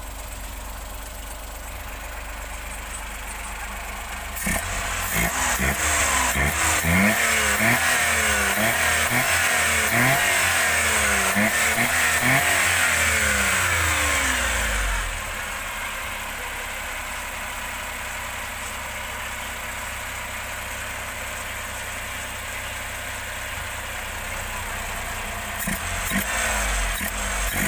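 Suzuki K6A three-cylinder engine idling, then revved in a quick series of rises and falls for about ten seconds before settling back to idle. It is revved again near the end.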